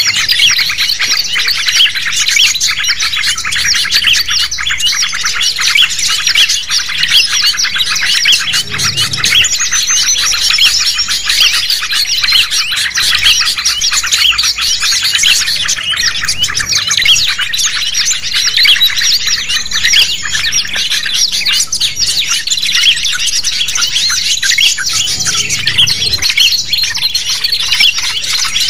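Dense, unbroken chorus of many small songbirds chirping and twittering rapidly over one another, high-pitched: a combined bird-lure recording of noisy small birds, used to call wild birds in.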